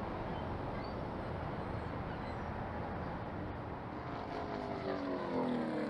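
Race car engines running on a speedway, a steady rumble; near the end one engine's pitch falls as it passes or backs off.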